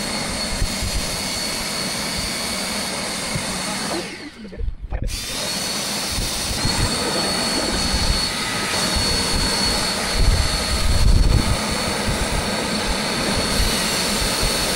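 Shop vacuum running with a steady high whine, cutting out briefly about four seconds in and spinning back up. A louder low rumble comes through about ten to eleven seconds in.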